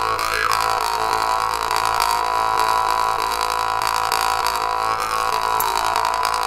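Berezenko "Om" jaw harp played as a continuous drone, its overtones swelling and gliding up and down several times as the player's mouth changes shape.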